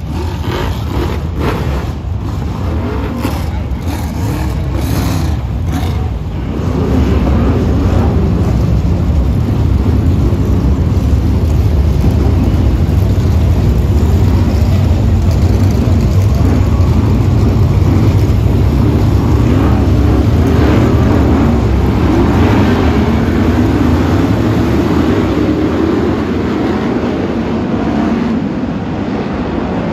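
A pack of BriSCA F1 stock cars racing, their V8 engines running loud and continuous; the sound swells about six seconds in as the pack comes past close and eases a little near the end.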